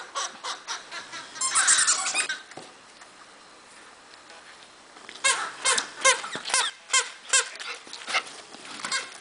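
Plush squeaky dog toy squeaking as an Alaskan Malamute chews it: a quick run of squeaks about a second and a half in, a short lull, then a string of sharp squeaks about two a second from the middle on.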